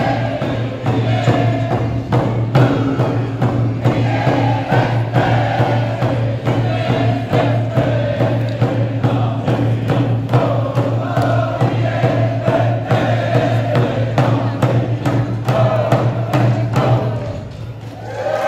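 Ahtna Athabascan group song: many voices singing a chant in unison over a steady drum beat. The song dies away shortly before the end.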